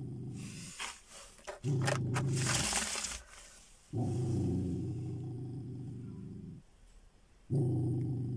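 Young dog growling in a series of long, low growls, one every few seconds, each starting abruptly and fading off. A crackling rustle sounds over the first few seconds.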